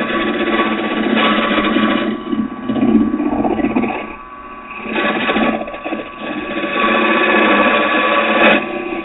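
Carbide-tipped rougher cutting a spinning blank of green oak on a wood lathe, over the lathe motor's steady hum. The cutting noise swells and fades as the tool is worked, with a short lull a little before the middle. The tool is pulling the wet fibres up rather than cutting them cleanly, which the turner puts down to the very green wood or a change in grain.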